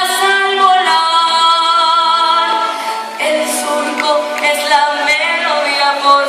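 A young girl's solo singing voice holding long notes that slide between pitches, with a short break about three seconds in.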